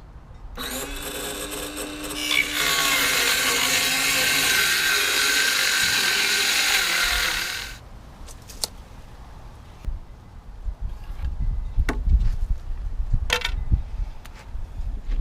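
A power saw starts and runs with a motor whine, then cuts through OSB board for about five seconds before stopping. Scattered knocks and handling thuds follow as the wood is moved.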